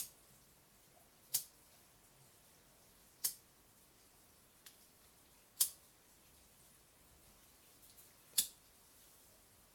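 A lighter being clicked repeatedly to heat-shrink tubing: five sharp single clicks, a couple of seconds apart, over a faint steady background.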